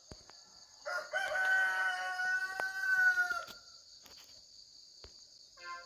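A rooster crowing once: one long call lasting about two and a half seconds, starting about a second in, its pitch dipping slightly as it ends. A steady high-pitched hiss runs underneath.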